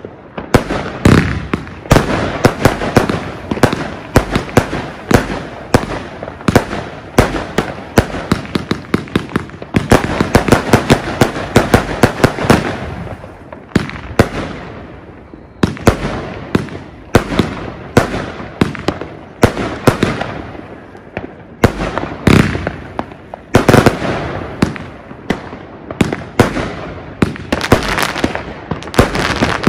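Argento 'Walküre' 131-shot fan-fired firework cake (20–30 mm calibres) firing in full swing: a rapid, uneven string of launch thumps and aerial bursts several times a second, with a short lull about halfway through before the shots pick up again.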